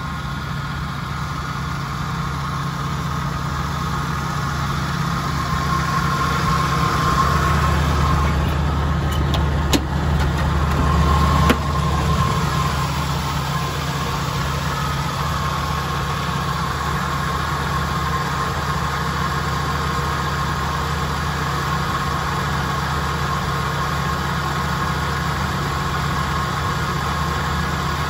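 1985 Jeep CJ-7 Laredo's engine idling steadily, with two sharp clicks near the middle.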